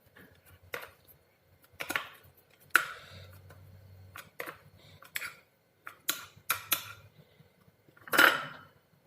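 Kitchen utensils clinking and knocking together, about a dozen separate hits at uneven intervals, with a longer, louder clatter near the end.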